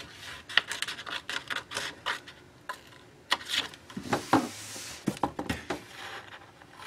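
Scissors snipping through paper as a corner flap is cut, a string of short sharp snips, with paper rustling and sliding around the middle.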